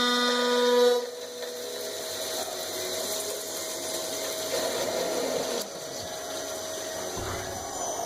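A shop machine running while working steel gear rod. A loud steady whine stops about a second in and gives way to a quieter steady whir with a noisy cutting sound that shifts about two thirds of the way through.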